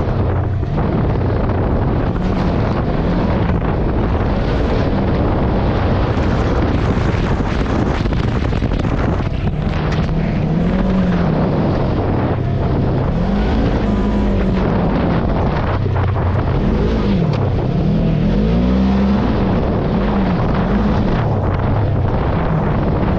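Polaris off-road vehicle's engine running under load on a dirt track, its pitch rising and falling again and again as the throttle is opened and eased. Wind buffets the microphone throughout.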